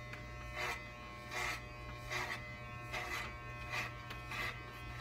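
Corded electric hair clippers with a guard buzzing steadily as they cut through synthetic wig hair, with a brief swell of cutting noise about every three-quarters of a second at each pass.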